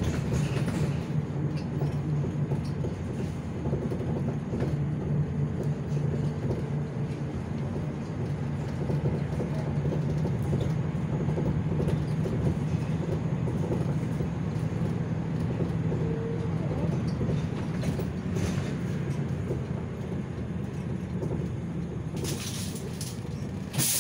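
City bus under way, heard from inside the cabin: a steady engine drone with road noise. Near the end come two short hisses of air.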